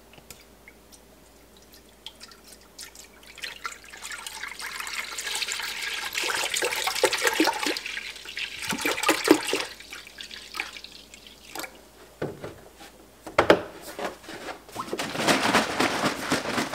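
Raw whole cow's milk poured from a plastic gallon jug into a stainless steel pot, a splashing pour that grows louder as the pot fills. The pour stops for a few seconds, with a couple of sharp knocks, then starts again near the end.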